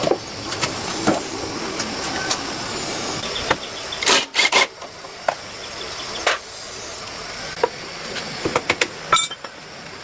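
Scattered sharp clicks and knocks over a steady hiss, with a quick cluster about four seconds in and another near the end. It sounds like hand work on the motorcycle, and the engine is not running.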